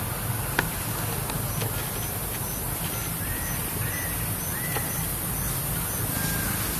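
Outdoor woodland ambience: a steady low rumble with a faint high-pitched pulse about twice a second, a single click just after the start, and a few short rising-and-falling chirps from an animal in the second half.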